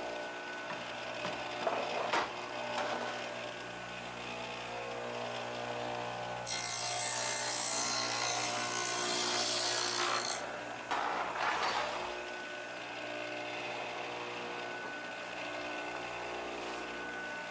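Saw blade on an electric motor's arbor running with a steady hum, then cutting a rabbet along the edge of a wooden board in one pass of about four seconds starting some six and a half seconds in. A shorter cut follows about a second later.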